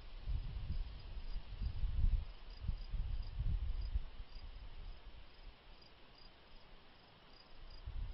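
Crickets chirping outdoors in short high pulses, about two a second, over an uneven low rumble that is louder in the first half.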